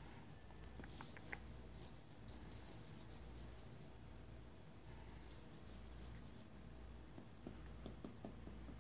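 Faint scratching and rustling of Ragdoll kittens' paws and claws scrabbling on carpet as they pounce on a feather wand toy, in irregular bursts about a second in, from about two to three and a half seconds, and again past the middle.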